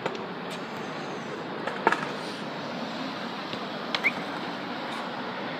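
A skateboard knocking sharply once on concrete about two seconds in, with a smaller click about four seconds in, over a steady outdoor hiss.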